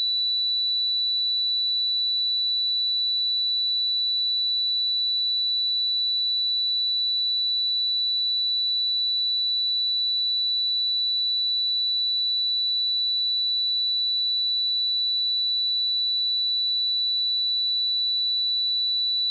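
A steady pure sine-wave test tone at 3958 Hz, a single high-pitched whistle-like note held at constant pitch and level.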